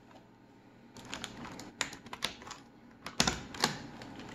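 Plastic clicks and clacks of a Toshiba Satellite Pro laptop keyboard being pressed and tucked back into its case, the keys rattling under the fingers. The clicks are scattered at first, with a louder cluster a little past three seconds in.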